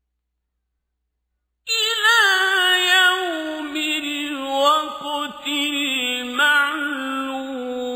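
Male Qur'an reciter chanting in the ornamented tajwid style: after almost two seconds of silence his voice comes in with a wavering, melismatic line and settles into a long held tone near the end.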